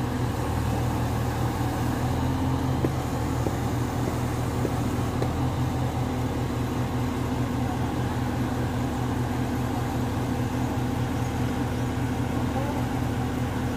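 Mobile crane's engine running steadily with an even low drone, with a couple of faint clicks.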